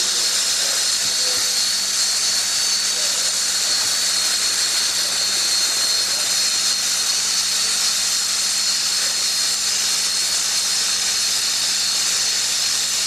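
Steam escaping from the 1901-built steam locomotive 3265: a loud, steady hiss that does not change.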